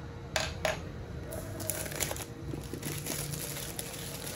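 Thin plastic shrink wrap being peeled and crinkled off a cardboard phone box, with two sharp clicks about half a second in, then a run of crackling.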